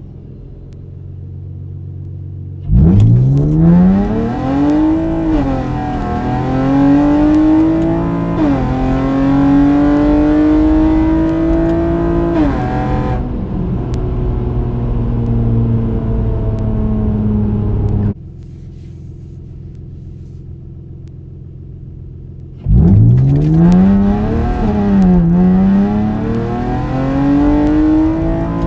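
2013 Honda Accord Coupe's 3.5-litre V6 at wide-open throttle from a standstill, heard from inside the cabin. The engine note climbs steeply and drops back at each upshift of the six-speed automatic, three times, then eases off to a steadier lower drone as the throttle is lifted. After a stretch of quiet idle, a second full-throttle launch climbs through two more upshifts.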